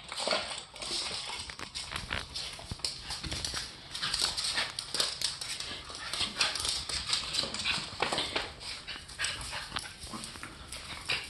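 Boston terrier puppy and a young dog play-fighting: rapid, irregular clicking and scrabbling of claws on a hard floor, with occasional short dog vocal sounds.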